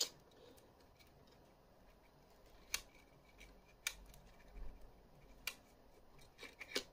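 Faint, scattered plastic clicks and taps as fingers work the tape around the reel of an opened VHS cassette: a handful of short sharp clicks, spaced a second or so apart.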